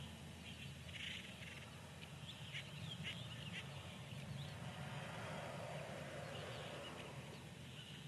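Newly hatched chicks peeping: many short, high chirps overlapping, over a steady low hum.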